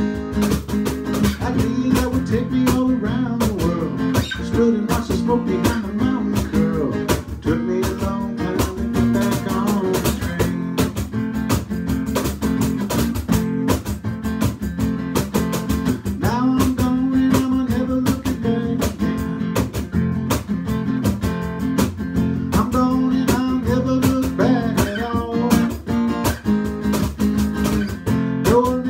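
Acoustic guitar strummed steadily in an instrumental passage of a song, with no singing.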